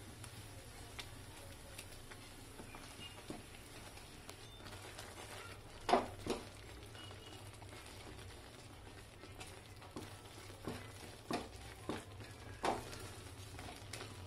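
Wooden spatula stirring and mashing thick flour dough in a nonstick pan, with soft scrapes and a few short knocks against the pan, the loudest about six seconds in and several more near the end, over a steady low hum.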